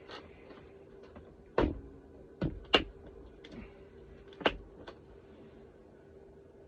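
A box of electronic components being rummaged through: a handful of sharp plastic clicks and knocks, the loudest nearly three seconds in and again about four and a half seconds in, over a faint steady hum.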